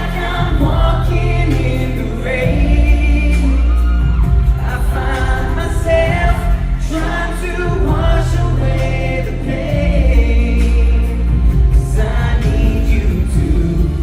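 Live pop song performed by a boy band: male voices singing over a full band with a heavy, steady bass.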